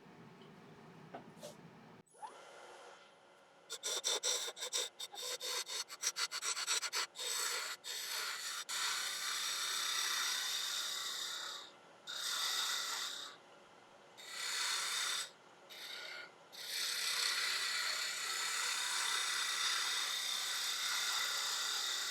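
A turning tool cutting a spinning piece of laburnum on a wood lathe: a quiet start, then a run of short, choppy cuts, then longer continuous cuts with a hiss of shavings, broken by a few short pauses as the tool is lifted off.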